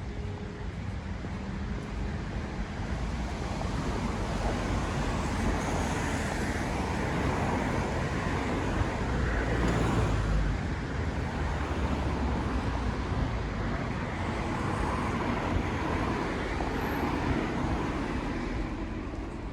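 City road traffic on wet streets: tyres hissing on wet asphalt as vehicles pass, swelling to its loudest about halfway through and then easing off.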